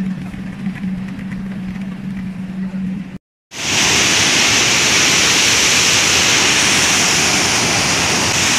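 A tour boat's motor hums steadily over rushing water. After a brief silent break about three seconds in, the loud, steady roar of the Rhine Falls' cascading water takes over.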